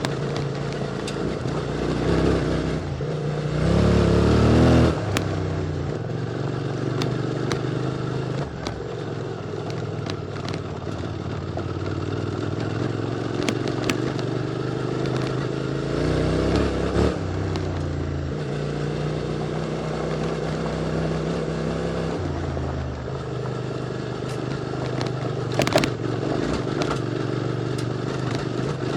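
QJ Motor SVT650X parallel-twin motorcycle engine running through an Arrow slip-on exhaust while riding. It opens up loudest about four seconds in, again around sixteen seconds and briefly near twenty-two seconds, and eases off between. Occasional sharp clicks sound over it.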